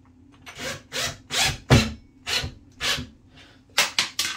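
Cordless impact driver driving a screw through a towel-ring base plate into a wall anchor in about six short trigger bursts, then a quick run of sharp clicks near the end.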